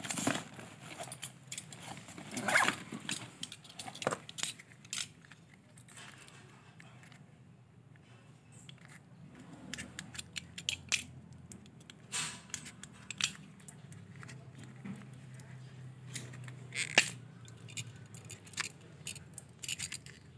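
Utility knife scraping and cutting at electrical cable insulation, with scattered clicks and taps from handling the wires.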